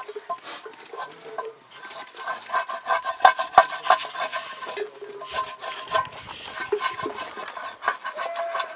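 A flat wooden stick stirring and scraping round the inside of a soot-blackened cooking pot over a wood fire, in quick, uneven rubbing strokes with sharp knocks, busiest a couple of seconds in.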